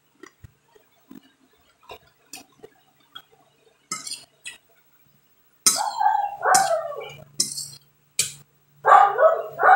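Faint clinks of a fork on a glass plate, then a dog barking several times in short barks starting a little past halfway.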